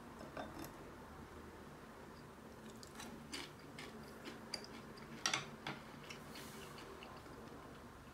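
A person chewing soy-simmered tsukudani grasshoppers, with a few faint crunches and clicks around three and five seconds in.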